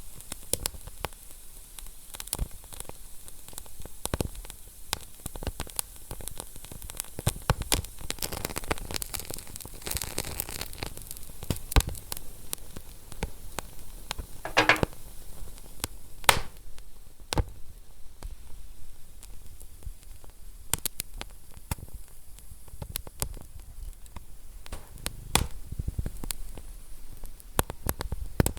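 Wood fire crackling in a fireplace: a steady hiss with many irregular sharp pops and snaps, and one longer sizzling pop about halfway through.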